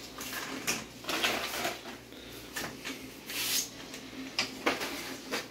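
Kitchen clatter: scattered knocks and clinks of pots and utensils being handled, with a few short hissing sounds.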